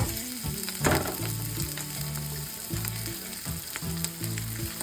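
Chorizo sizzling and frying in a pan, with a few scrapes of a spatula stirring it, over a steady hiss. A bass line of background music runs underneath.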